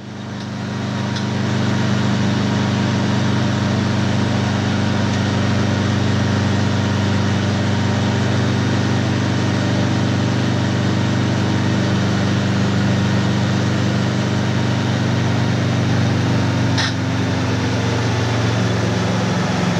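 Enstrom F-28F piston helicopter running at a hover: a steady, loud drone of engine and rotor with an even low hum. A single short click comes about 17 seconds in.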